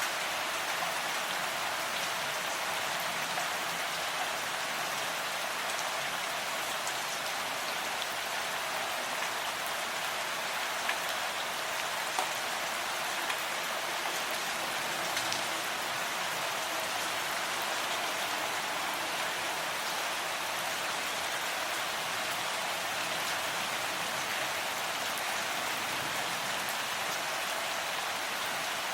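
Steady rain falling: an even hiss with a few sharper drop ticks here and there.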